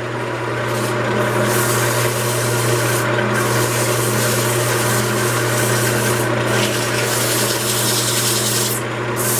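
150-grit sandpaper held against a wooden tankard blank spinning on a lathe: a steady rubbing hiss that breaks off briefly a few times as the paper lifts, over the steady hum of the lathe.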